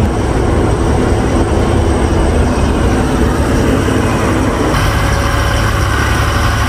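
Truck's diesel engine running steadily under load while climbing a hill road, heard inside the cab along with road and wind noise. There is a slight shift in tone about two-thirds of the way through.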